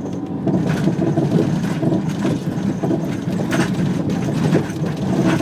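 Vehicle driving, heard from inside: a steady low engine and road rumble, with a few short knocks from bumps.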